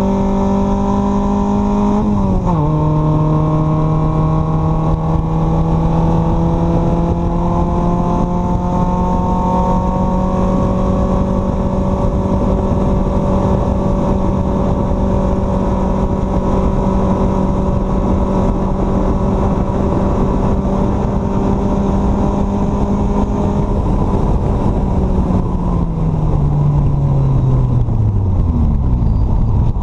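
The Exomotive Exocet's 1.6-litre Mazda Miata four-cylinder engine running hard on track. The revs drop quickly about two seconds in, as on an upshift, then climb slowly and steadily under load for a long stretch. They fall over the last few seconds as the car slows.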